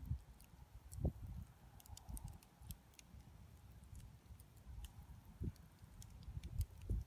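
Wood fire crackling faintly, with scattered small sharp pops and snaps and a couple of low dull thumps.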